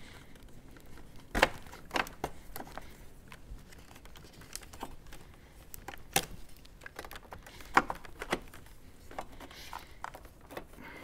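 Hard plastic clicks and knocks of a radio mounting tray being handled and fitted into a Harley-Davidson fairing, a string of sharp taps at irregular intervals.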